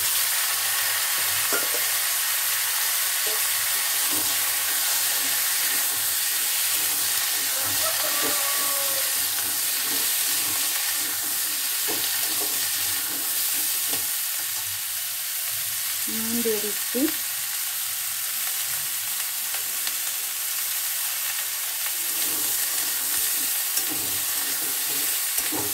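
Chopped mixed vegetables (potato, pumpkin, onion and vegetable stems) sizzling steadily in hot oil in a steel karahi, just after going into the pan over tempering spices.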